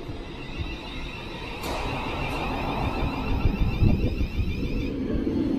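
Thameslink Class 700 electric multiple unit arriving at the platform and slowing. Its running gear rumbles on the track, growing louder as the coaches pass, over a steady high electric whine that sets in about a second and a half in.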